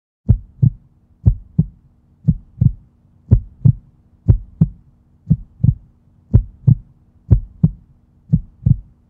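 Heartbeat sound effect: a steady lub-dub, a double thump about once a second, over a faint steady low hum.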